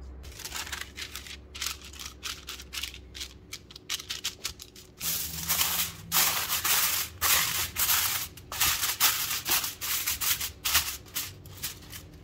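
Aluminium foil crinkling and crackling as it is spread over a glass baking dish and pressed and crimped around its rim, in quick irregular bursts that grow denser about five seconds in.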